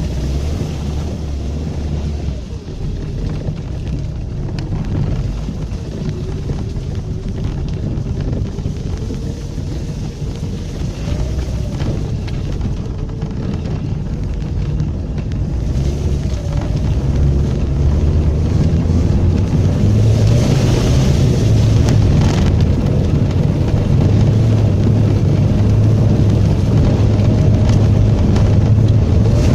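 Lada 2110 car driving through mud, its four-cylinder engine working under load; the engine note grows louder about halfway through.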